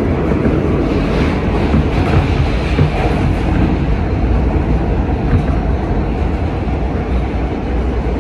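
Kawasaki R160B subway train with Siemens propulsion running at speed, heard from inside the car: a steady, loud rumble of wheels on rail.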